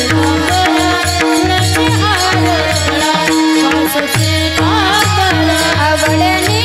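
Marathi devotional kirtan music: a woman singing, with a pakhawaj drum beating a steady rhythm, a row of men clashing small brass hand cymbals (taal) in time, and a sustained drone note underneath.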